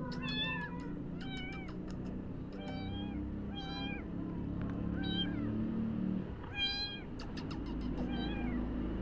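Young kitten mewing repeatedly, short high-pitched mews about once a second, hungry for milk.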